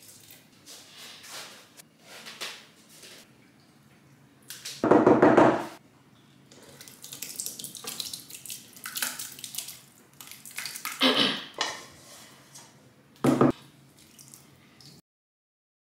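Liquid bean batter and then a saucepan of fried pepper stew poured and splashing into a large cooking pot, with metal cookware clattering and scraping. The loudest sounds are a clatter lasting about a second, about five seconds in, and a sharp knock near the end.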